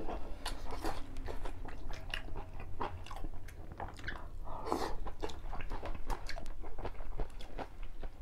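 People eating with chopsticks from bowls: chewing and biting sounds with many small clicks and taps, and one louder brief burst of noise about midway.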